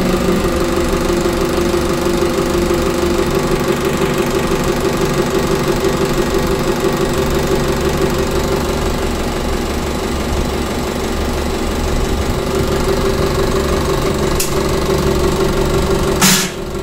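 Diesel injection pump test bench running a Bosch distributor injection pump at a steady speed, the bench drive turning the pump while its injectors spray into the graduated measuring glasses. A brief loud burst of hiss comes near the end.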